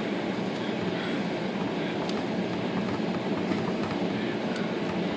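Steady low rumbling background noise, with a few faint clicks as the typewriter's key and stuck type bar are worked.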